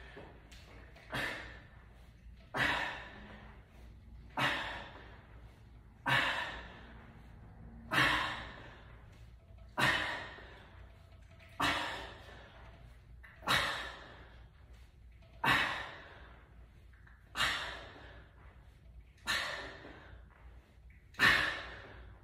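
A man's short, forceful exhaled breaths, one with each rep of barbell calf raises. There are twelve, evenly spaced about two seconds apart, each fading quickly.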